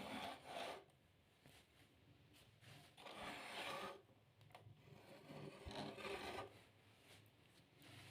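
Faint rubbing and scraping of objects being handled, in three short bursts of about a second each.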